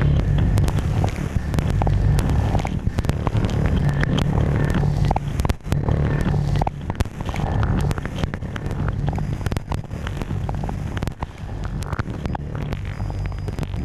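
Modular synthesizer playing a dense, low rumbling drone laced with many sharp crackles and clicks. It drops out for an instant about halfway through.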